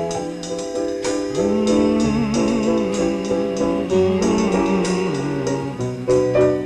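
Instrumental introduction of a pop song: held melody notes that waver in pitch over a steady pulse of short struck or plucked chords, with no singing yet.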